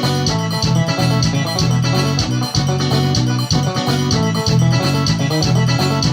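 Music with a steady beat: a recorded song playing loud and continuous.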